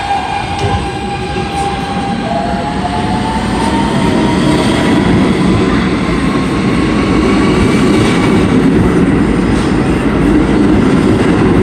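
NYC subway Q train accelerating out of the station: the traction motors' electric whine rises steadily in pitch while the rumble of the cars and wheels on the rails grows louder as the train speeds past.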